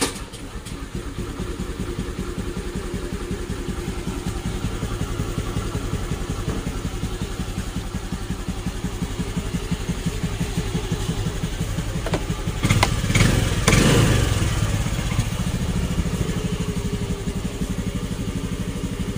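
Honda Dio scooter's single-cylinder four-stroke engine idling steadily, with a brief louder burst about two-thirds of the way through.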